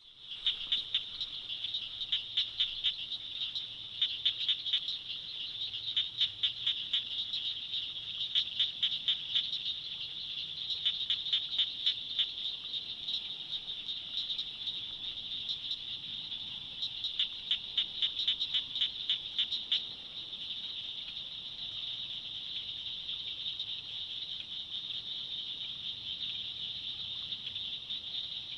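Swamp chorus of frogs and insects: a steady high-pitched trill, with runs of rapid clicking calls that come and go for about a couple of seconds each. The clicking runs stop about twenty seconds in, leaving only the steady trill.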